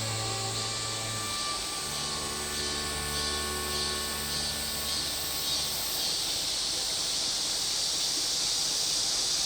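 A stream's water running steadily with an even hiss, while string music fades out over the first six seconds or so.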